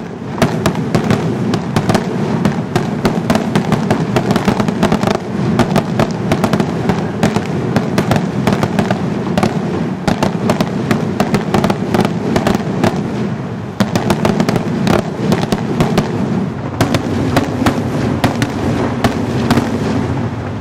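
Fireworks going off: a long, dense run of rapid bangs and crackles, with sharper reports standing out over a continuous noisy rumble.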